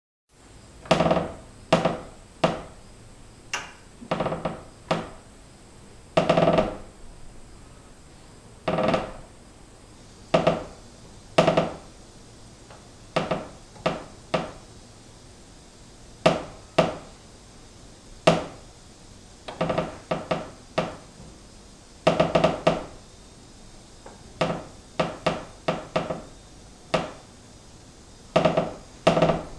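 Wooden beam creaking: a long series of short, pitched creaks, each under a second, coming at irregular intervals and sometimes two or three in quick succession.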